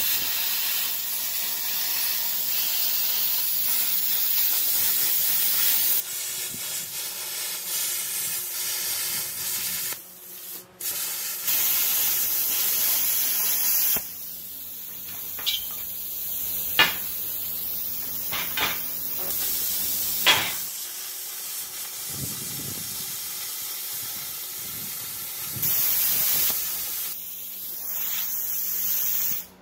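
Plasma cutter cutting quarter-inch steel plate: a steady, loud hiss of the arc and air jet with a low hum beneath. It breaks off briefly about a third of the way through, and a few sharp clicks sound midway.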